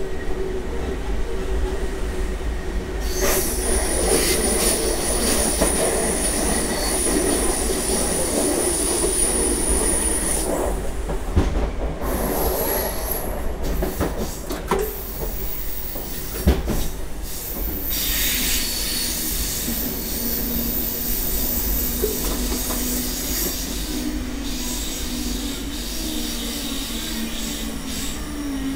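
Electric suburban train running on the rails, heard from the driver's cab: a steady rumble with a high-pitched wheel squeal that comes and goes. Two sharp clicks sound at about 11 and 16 seconds.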